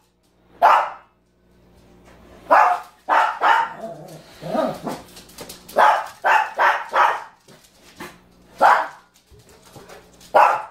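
Small dog barking in short, sharp barks, about ten of them spaced irregularly, excited for a balloon to be batted for it to play with.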